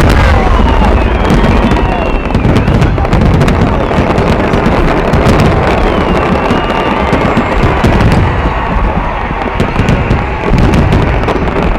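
Large fireworks display: aerial shells bursting one after another in continuous heavy booming, with dense sharp crackling between the bursts.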